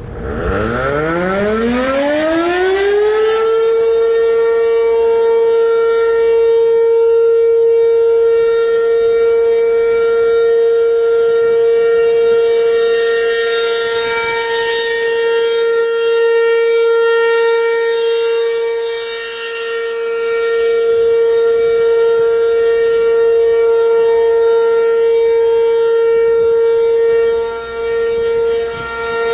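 ASC RM-127 outdoor warning siren winding up and sounding its Alert signal: the tone climbs steeply in pitch over the first three or four seconds, then holds one steady, very loud tone with overtones. The level dips briefly now and then.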